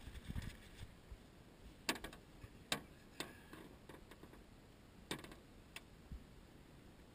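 About five sharp, irregularly spaced clicks and knocks as a striped bass is handled and freed from a landing net in an aluminum boat.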